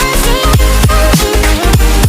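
Electronic background music with a fast beat: deep bass and punchy kick drums that drop in pitch, about two to three hits a second, over held synth notes.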